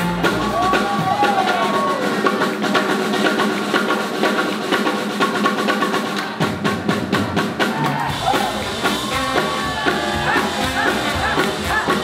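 Live swing jazz band playing, with the drum kit prominent. The lowest bass drops away for a few seconds; about two-thirds of the way through the drums come to the front, and the horns and bass then come back in with short rising-and-falling phrases.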